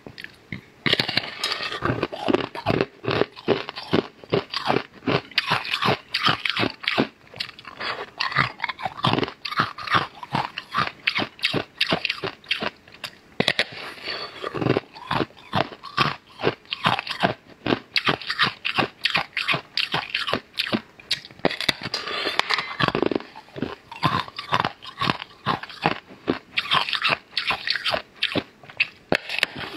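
Someone biting into and chewing a large, thin, star-shaped crisp wafer snack: a steady run of sharp, brittle crunches, a few every second.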